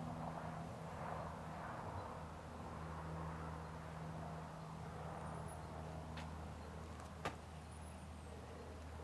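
Quiet outdoor ambience: a steady low hum with a few faint, short high chirps from birds, and two sharp clicks about six and seven seconds in.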